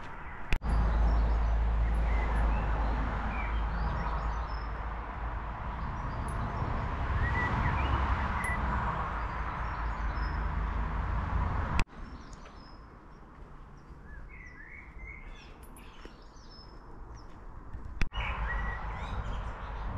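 Small birds chirping and singing over a low rumble of wind on the microphone. The rumble drops away for several seconds in the middle, where the bird calls stand out more clearly.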